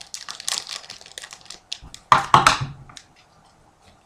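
Foil trading-card pack wrapper crinkling and rustling in the hands, with a louder crinkle about two seconds in.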